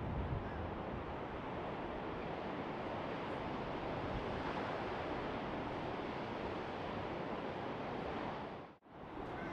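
Steady wash of sea surf breaking on the shore, with wind on the microphone. The sound drops out abruptly for a moment near the end, then returns.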